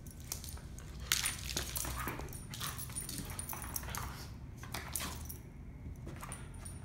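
Two dogs play-wrestling on a yoga mat: metal collar tags and chain jingling in irregular bursts as they grapple, with paws scuffling.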